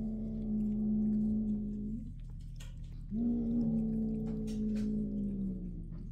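A domestic cat growling low: two long, steady growls of about two seconds each, with a short break between them.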